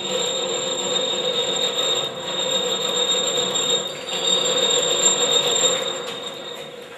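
Pouch packing machine running as the packaging film is drawn through its rollers: a steady mechanical run with a high whine. It starts suddenly, dips briefly about two and four seconds in, and dies away near the end.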